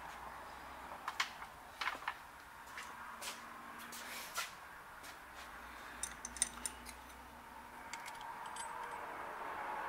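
A scattering of light metallic clicks and clinks as a small brass part and steel parallels are handled and set down on a milling machine vise, over a faint steady hum.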